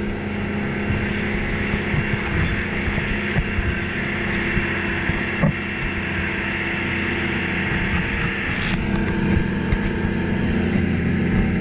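A rigid inflatable dive boat's engine running steadily at speed, a constant drone, with water rushing and splashing against the hull and wind noise over it.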